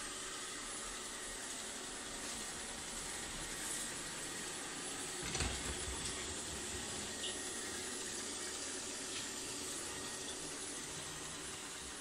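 ILIFE V50 Pro robot vacuum cleaner running, a steady hiss from its suction fan and brushes as it drives across a laminate floor. A single dull thump about five seconds in.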